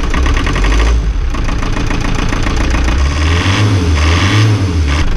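Volvo Penta TMD22 marine diesel turning over on its starter with an even rhythmic beat, then catching and running unevenly for a couple of seconds about three seconds in, as it is restarted after its injectors were refitted.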